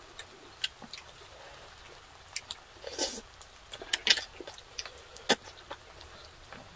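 Eating sounds close to the microphone: scattered short clicks and wet smacks from chewing and from chopsticks against glass bowls, a second or so apart, the loudest near the middle.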